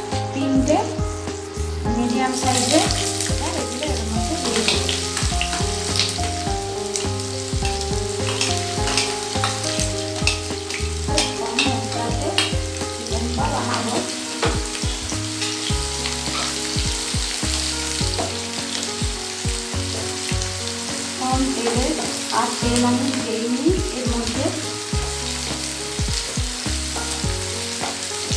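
Chopped onions sizzling as they fry in hot oil with cumin seeds and a bay leaf. The sizzle grows much louder about two seconds in, as the onions go into the pan. Scattered clicks and scrapes come from a wooden spatula stirring them.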